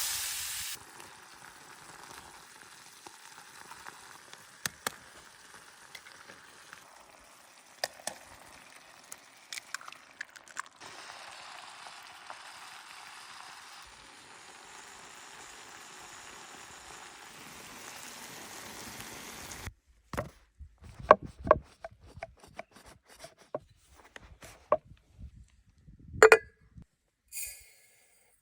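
Liver frying in a pan: a loud hiss as it goes in, settling into a steady sizzle with scattered clinks of a utensil. After an abrupt cut, a run of sharp knocks and clinks, like a utensil striking the pan.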